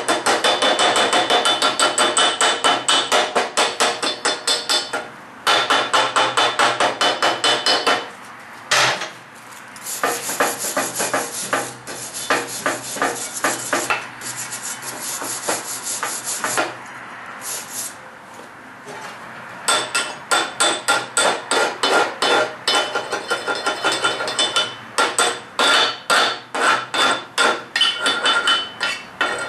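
Rapid back-and-forth scraping on steel, about six strokes a second, like a hand brush or file worked hard on a weld. It breaks off briefly and goes on in a softer, hazier stretch before the quick strokes return.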